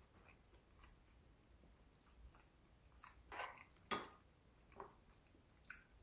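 Faint, scattered clicks of metal chopsticks against a plastic food container and a ceramic bowl while eating, the sharpest about four seconds in, with a little soft chewing.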